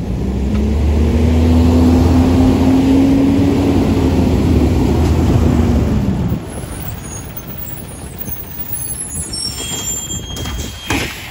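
Natural-gas Autocar ACX garbage truck engine revving up and holding steady for about five seconds, then dropping back at about six seconds as the truck pulls forward. High squeaks follow, and there is a short hiss of air near the end.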